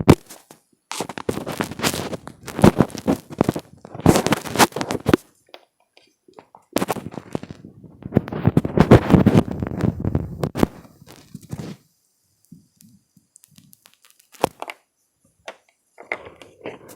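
Hands rubbing, scratching and tapping directly on a microphone, giving close-up scratchy contact noise with sharp knocks, in two long bursts. A quieter stretch with a few soft taps and one sharp click follows near the end.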